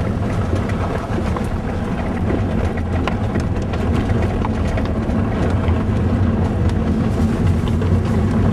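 Car driving with a loud, steady low rumble and many light rattling ticks from loose plastic under the car, which is making the car sound bad.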